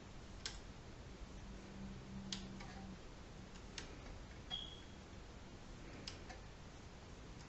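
Input setting levers of a Schubert DRV mechanical calculator being moved by hand: a handful of faint, separate metallic clicks about a second apart, one with a brief high ring.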